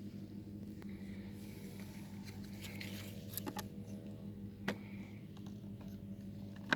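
Faint scattered clicks and taps, about half a dozen, the sharpest nearly five seconds in, over a low steady hum.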